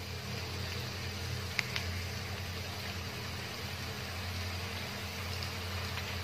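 Diced chicken sizzling steadily in a wok over a high gas flame, over a low steady hum, with a couple of small pops about a second and a half in.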